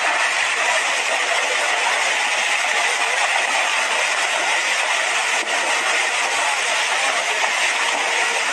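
Steady rushing noise of a muddy landslide debris flow pouring down a wooded slope, with no break in the sound.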